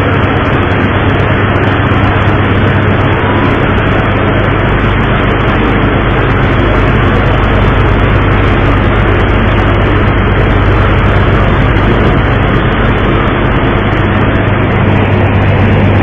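Boat engine running steadily: a loud, even low hum under a constant broad noise.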